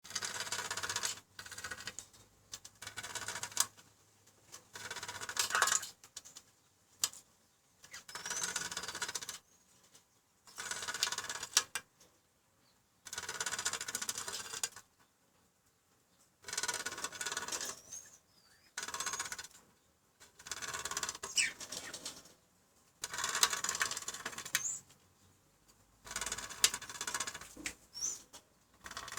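Male cockatiels making a courting racket: repeated bursts of rapid rattling taps, each a second or two long and a few seconds apart, with a few short high whistles.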